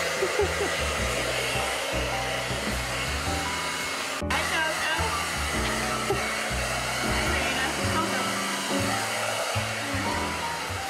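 Handheld hair dryer blowing steadily, drying a wet Shih Tzu's coat after a bath. Its noise breaks off for an instant about four seconds in, over background music.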